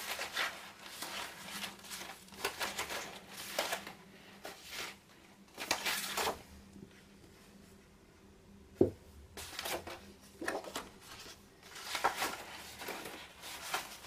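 Sheets of scrap paper rustling and sliding as they are leafed through and picked up, in short irregular swishes with a quieter pause in the middle, and a single light knock just before it picks up again.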